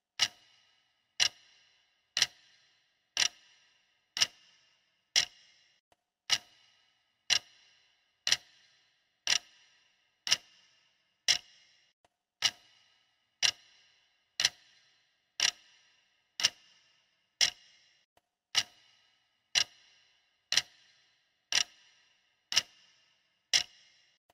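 Clock ticking steadily, about one sharp tick per second, each tick followed by a brief ringing tail.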